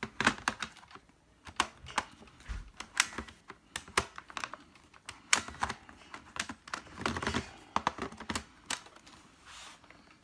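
Irregular plastic clicks, taps and knocks from a Compaq Presario CQ57 laptop being handled, its case and parts being pressed and fitted.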